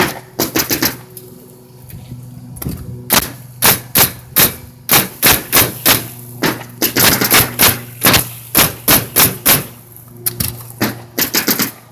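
Nails being driven in a rapid run of sharp strikes, about two to three a second, in bursts with short pauses, over a steady low hum.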